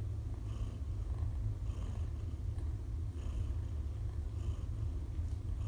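Domestic cat purring, a steady low rumble, while a kitten nurses from its mother.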